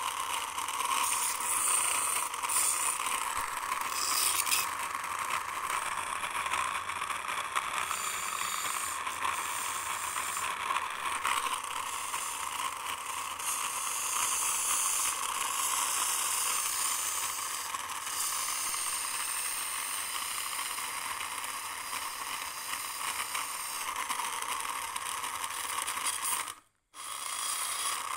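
Toy car's small motor and plastic gears whirring steadily, cutting out briefly near the end.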